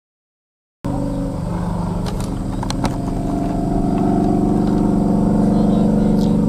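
After about a second of dead silence, a motor vehicle engine running steadily, growing louder about four seconds in as it comes closer.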